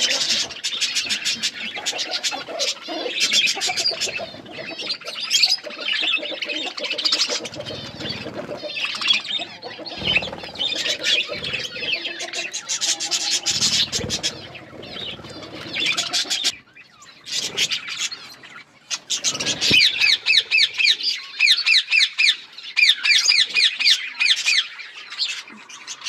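Budgerigars chirping and chattering continuously, with a short quieter spell past the middle and then fast runs of short repeated notes near the end.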